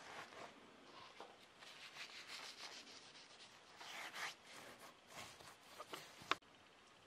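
Hands rubbing coarse salt and spices into raw pork belly fat: soft, gritty scraping in repeated strokes, with one sharp click a little after six seconds in.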